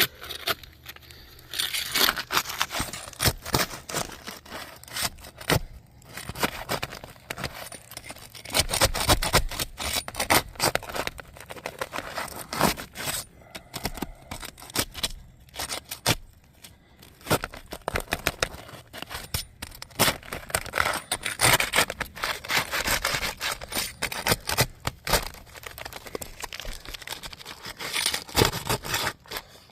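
Asphalt roof shingles being pried up from their sealant strips, with irregular scraping, crackling and tearing in bursts; the shingles rip as they are loosened.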